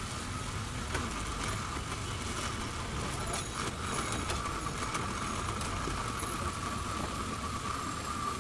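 Steady street traffic noise with a constant faint hum, and a few sharp taps of a kitchen knife on a plastic cutting board during the first half.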